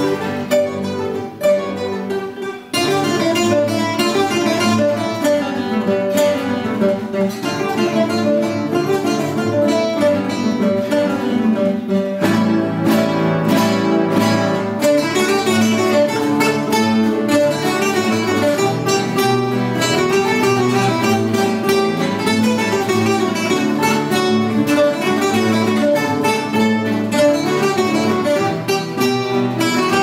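A children's ensemble of about twenty classical guitars playing a piece together, notes plucked densely. The sound thins and drops briefly about two seconds in, then the full ensemble comes back in.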